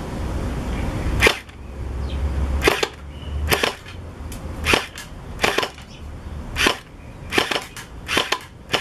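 Gel-ball blaster firing single shots one after another: about nine sharp cracks, roughly one a second.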